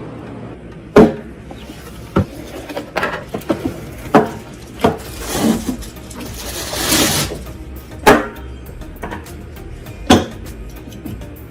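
Irregular clicks and knocks of computer parts being handled and fitted during a PC build, with a brief rustling hiss about seven seconds in, over soft background music.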